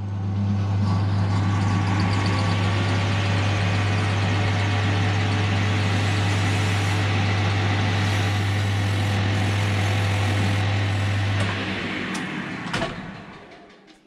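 Metal lathe running, spinning a winch-motor armature while a Scotch-Brite pad is held against the commutator to clean off burn marks: a steady low hum with a hiss of gear and rubbing noise over it. About twelve seconds in the lathe is switched off and runs down, with a click.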